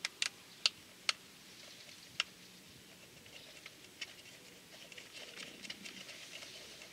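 Several sharp small clicks in the first two seconds, then a run of faint clicking and rustling: hands handling the headlight assembly and bulb fitting of a Honda Super Cub 110 Pro during a halogen bulb change.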